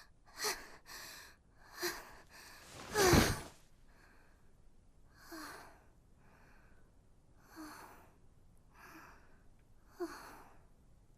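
A person breathing heavily in a row of huffing, sighing breaths about a second apart. The loudest comes about three seconds in and the later ones are fainter.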